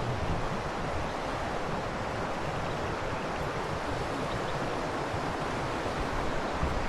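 Steady rushing wind noise on the microphone, with gusty low rumbling.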